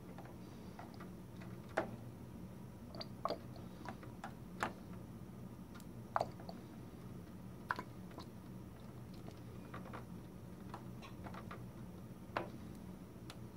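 Ink draining from an upended bottle into a Canon G1000 printer's ink tank: scattered small pops and clicks, roughly one every second or two.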